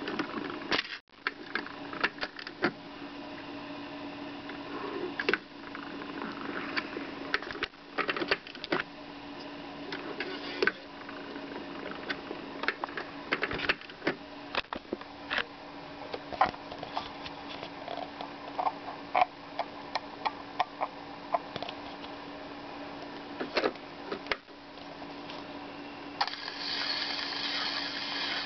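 Old 1950s 3-inch train sound-effects record playing back, with a steady hum and frequent irregular clicks and pops from the worn disc. It drops out briefly about a second in and grows louder and brighter near the end.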